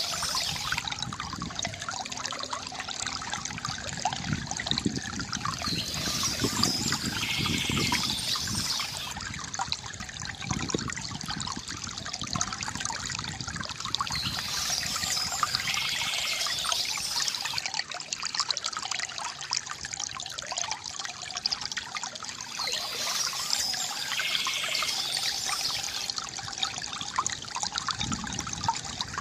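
Water trickling and gurgling steadily from a bamboo fountain, with birds chirping in short spells about every eight seconds.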